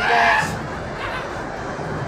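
Heavy downpour: the steady hiss of torrential rain, with a spoken word at the very start.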